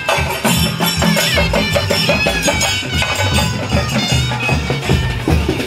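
Traditional procession music: steady drumming with a wavering, ornamented wind-instrument melody over it.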